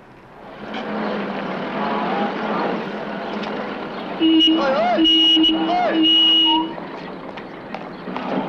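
Car engine running as the car pulls in, then the car horn sounded in three loud blasts over about two and a half seconds near the middle.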